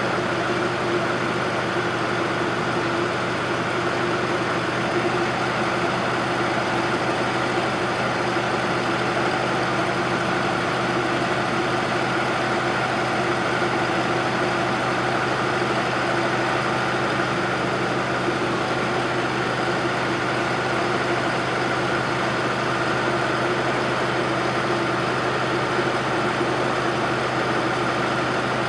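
Bobcat 610 skid-steer loader's Wisconsin gasoline engine running steadily, with the pitch easing down slightly right at the end.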